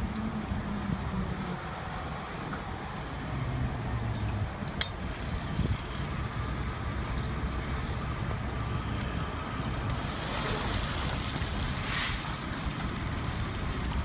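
Fire engine's diesel idling as a steady low rumble, with a single metal clink about five seconds in. About ten seconds in, a rushing hiss of water starts as the hydrant is opened and water sprays around the hose fitting, swelling briefly near twelve seconds.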